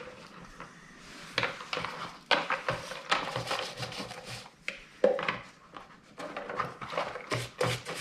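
Stiff parts brush scrubbing oily chainsaw parts in a plastic tub of kerosene: quiet for the first second, then irregular scratchy strokes and knocks against the tub, the sharpest knock about five seconds in.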